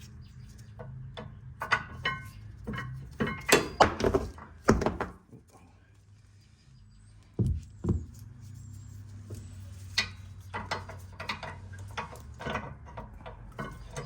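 Metal-on-metal clinks and knocks of brake pads being fitted into a rear disc-brake caliper bracket, with two heavier thunks about halfway through. A steady low hum runs underneath.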